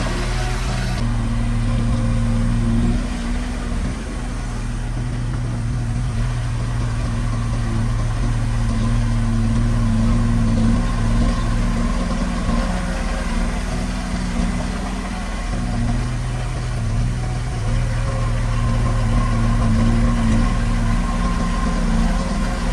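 Diesel engine of heavy earthmoving equipment running steadily, its level dipping slightly and coming back a few times.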